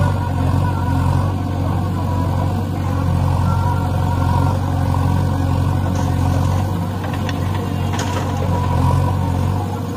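Diesel engines of a backhoe loader and a farm tractor running steadily while the backhoe digs. Several short knocks come in the last few seconds as the loaded bucket swings over and dumps earth into the tractor's trolley.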